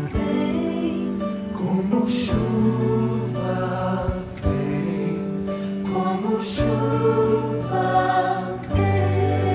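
Christian worship song: a choir singing long held notes over band accompaniment, with two brief bright crashes about two seconds in and again past the middle.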